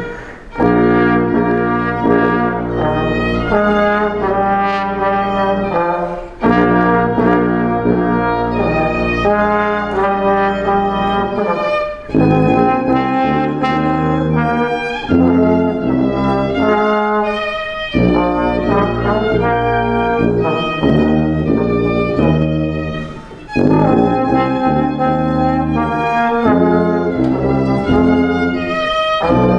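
A trio of violin, sousaphone and trombone playing a holiday tune, with the brass most prominent over a sousaphone bass line. The phrases break off briefly about every six seconds.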